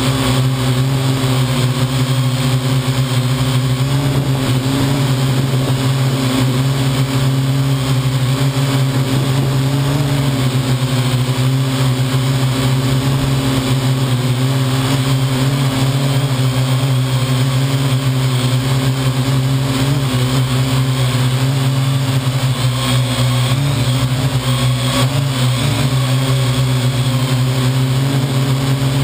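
Parrot AR.Drone quadcopter's four electric motors and propellers heard up close from the onboard camera, a steady loud hum whose pitch wavers slightly as the drone flies.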